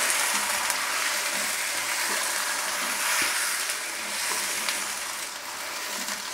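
Chicken pieces sizzling in hot oil in a non-stick karahi, stirred with a spatula. The sizzle is a steady hiss that swells and eases every second or so.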